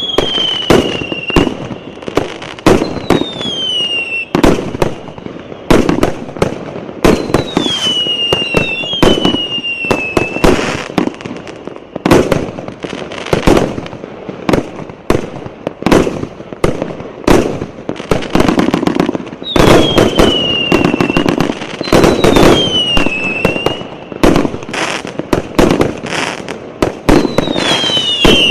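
Fireworks display: a dense run of shell bursts and bangs, with about eight whistles that each fall in pitch over about a second.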